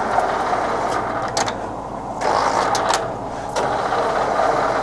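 Power rapid traverse of a Scott 6250B centre lathe's carriage running, a steady mechanical whirr, broken by a few sharp clicks and two short dips in level as the rapid is stopped and started.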